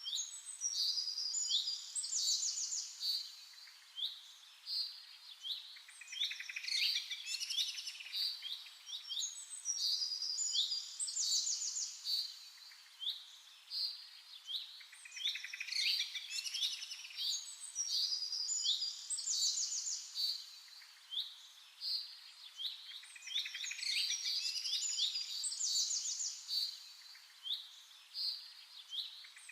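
Birds chirping and trilling, many quick high calls in phrases that repeat every few seconds.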